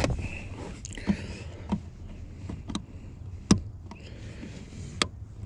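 Scattered sharp plastic clicks and knocks from hands working the accelerator pedal's wiring connector loose, about one every second, the loudest about three and a half seconds in, over a low steady hum.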